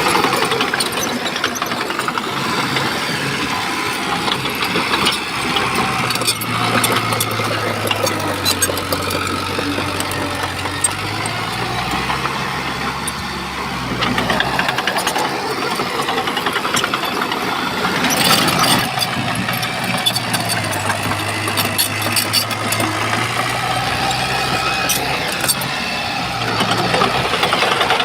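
Bulldozer's diesel engine running under load, its pitch rising and falling, with scattered clanks and rattles. The clanks are heaviest about two-thirds of the way through.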